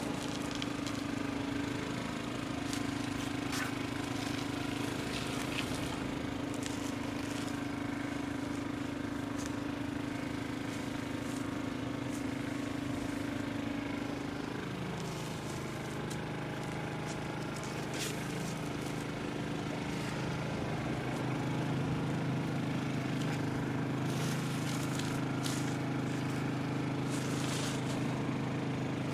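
A steady engine or motor hum, its tone shifting lower about halfway through, with a few faint clicks over it.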